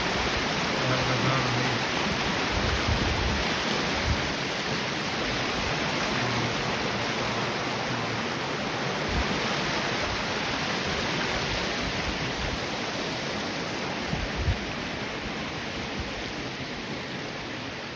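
Waterfall on a stream swollen with spring snowmelt, rushing steadily. A few brief low bumps sit on top, the largest about 14 seconds in.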